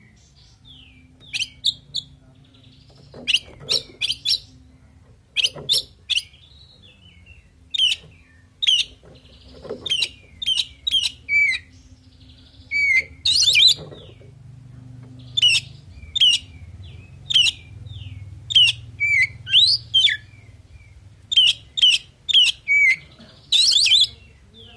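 Oriental magpie-robin (kacer) singing: quick phrases of short, sharp whistled and chattering notes with brief pauses between them. It is the varied song full of mimicked fill-in phrases (isian) kept for training other kacer.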